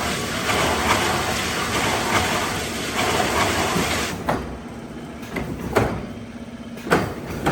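Log debarking machine running with a dense scraping, rumbling noise that drops away sharply about four seconds in. A low hum and a few separate knocks follow.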